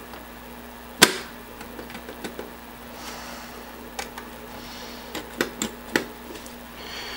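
Small clicks and knocks from hands handling the metal mechanism of a disassembled 5.25-inch floppy drive while greasing its rollers with a cotton swab. The loudest knock comes about a second in, and a quick run of clicks follows around five to six seconds in.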